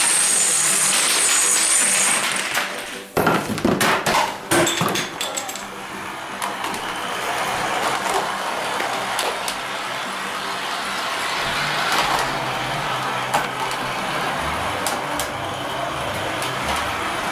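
A long row of dominoes clattering as they topple in quick succession, then a few heavier knocks a few seconds in. After that an electric model train runs steadily around its track with a continuous rumble.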